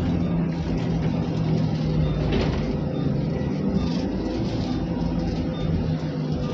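An airport apron bus's engine running steadily while the bus drives, heard from inside the cabin: a low, even hum over road rumble.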